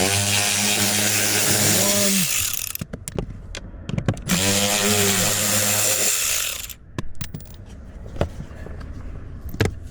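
Cordless drill/driver with a T20 Torx bit, run in two bursts of about two and a half seconds each to back out the blower motor's screws, its motor whine shifting in pitch as it speeds up and slows. A few light clicks follow near the end.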